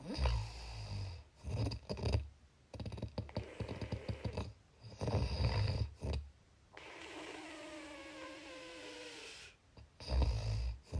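Snoring: a run of rough, fluttering snores over the first six seconds, then a quieter breathy stretch with a faint whistle falling in pitch, and one more snore near the end.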